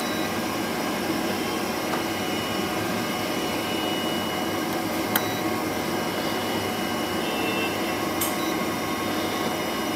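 Steady fan-like whooshing with a faint, steady high whine, from running workshop equipment.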